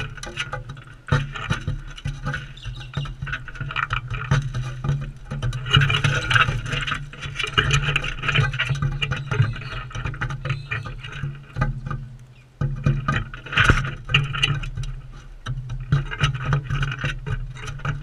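Galahs feeding up close: a dense, irregular run of clicks, taps and scrapes as their beaks work seed and knock on the ledge. Under it runs a steady low hum that drops out for a few seconds past the middle.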